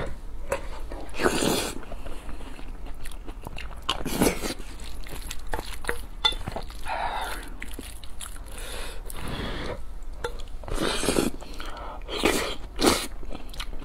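Close-miked eating sounds: chewing and slurping mouthfuls of rice mixed with braised eggplant in sauce, in repeated short bursts.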